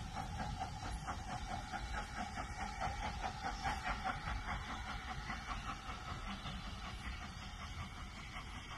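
Distant steam locomotive working hard, its exhaust chuffing in a quick, even beat that fades over the second half, over a low rumble and a faint steady hiss.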